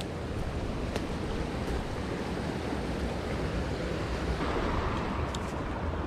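Wind buffeting an action camera's microphone: a steady low rush of noise, with a few faint clicks about a second in and again around five seconds.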